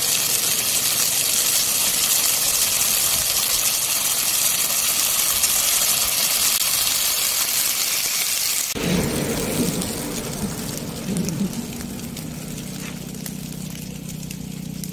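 Dry grass and scrub burning, a dense crackling hiss, for about the first nine seconds. It then changes to the lower steady hum of a vehicle engine.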